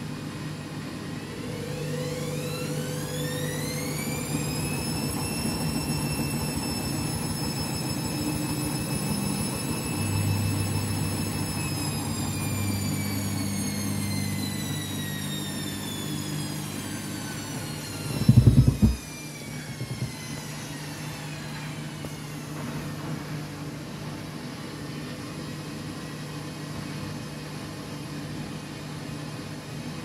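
Front-loading washing machine, loaded with a bath mat, in its final spin: the drum motor's whine rises as the drum spins up, holds at top speed for several seconds, then falls steadily as the drum winds down. About two-thirds of the way through comes a brief loud low thump as the drum slows, and a low hum continues under it all.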